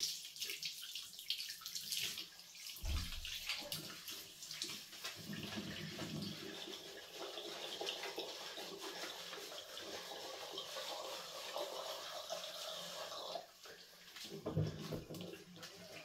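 Bathroom tap running into a sink while a man rinses his hair under it, the water splashing off his head into the basin. The running water falls away near the end.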